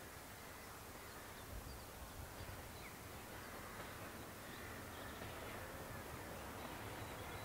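Distant diesel locomotive's low engine rumble, growing slightly louder as the train approaches, with birds calling faintly.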